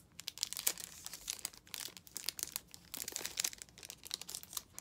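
Thin clear plastic protective sleeve crinkling as it is worked off a makeup brush's bristles and handled, an irregular run of small crackles.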